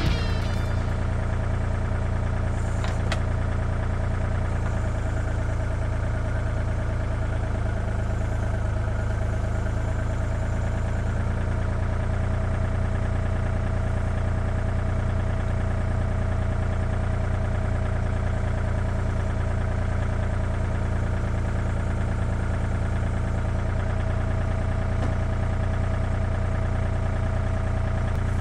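Excavator's diesel engine running steadily at a constant speed, with a single short click about three seconds in.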